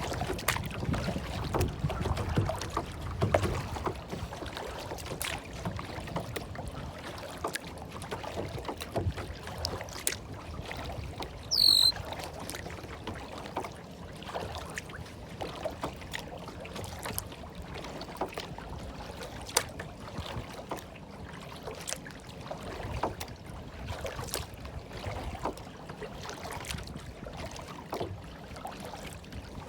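Gentle water lapping and splashing, full of small irregular clicks and drips. About twelve seconds in comes a single brief high chirp, the loudest sound in the stretch.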